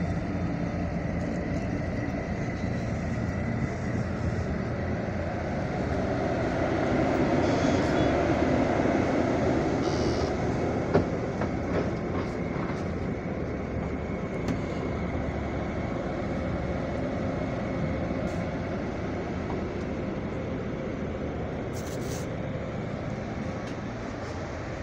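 Coach bus's diesel engine idling, heard from inside the passenger cabin as a steady low rumble. It swells a little partway through, and there is one sharp click about eleven seconds in.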